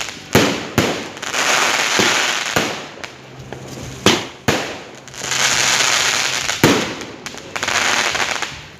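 Fireworks going off: several sharp bangs with long stretches of loud hiss between them.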